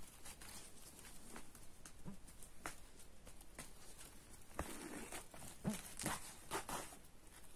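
Light clicks and scratchy rustles of hand sewing: a needle pushed through cloth and thread drawn through it while working a randa needle-lace edging stitch. The handling sounds come more often a little past halfway through.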